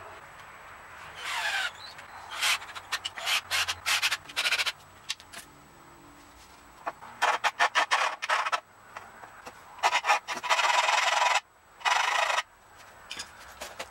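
Woodworking on pallet boards: a run of short, harsh scraping and tool bursts in quick succession, some clustered rapidly, with one held for over a second about ten seconds in.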